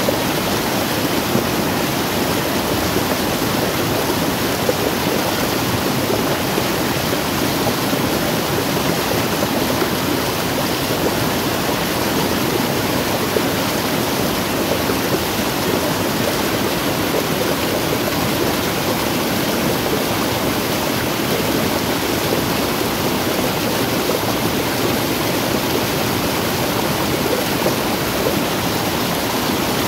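Muddy runoff water rushing steadily down a small cascade over rock and earth close by.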